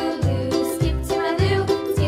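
Light, upbeat background music with a steady beat of about two bass notes a second.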